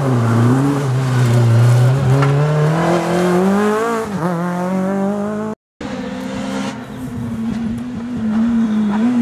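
Rally car engine accelerating hard, its pitch climbing steadily, with a short dip about four seconds in like a gear change. After a sudden cut, another rally car's engine is heard at high revs, easing down in pitch near the end.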